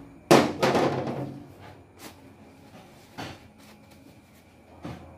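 Loose metal engine parts being rummaged and picked up off a workbench: a loud rattling clatter a moment in, then a few lighter clicks and knocks as small pieces are handled.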